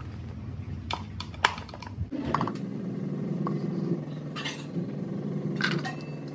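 A few sharp clicks and light knocks from a plastic pull-string vegetable chopper being opened and chopped banana stem being tipped out into a bowl, over a low steady hum.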